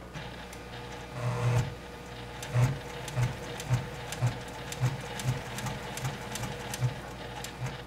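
Domestic electric sewing machine stitching slowly through many thick layers of quilt fabric. After a short louder run about a second in, it settles into a regular pulse about twice a second, then stops near the end.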